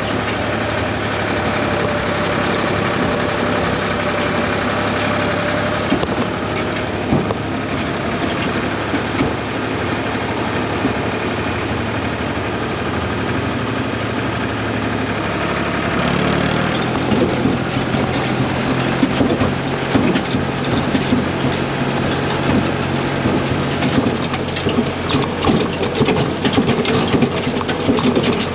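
A farm machine's engine running steadily. Its speed steps up a little past halfway, and a rapid rattling clatter joins in over the last few seconds.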